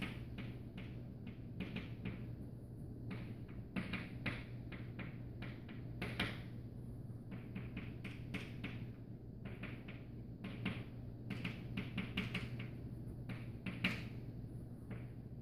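Chalk writing on a blackboard: a quick, irregular run of sharp taps and short scrapes as each letter is written, over a steady low hum.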